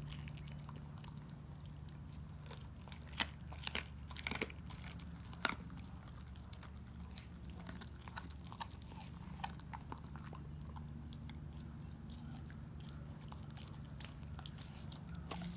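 Dog gnawing on raw pork ribs, with irregular sharp crunches as his teeth work the meat and bone, the strongest a few seconds in. A steady low hum runs underneath.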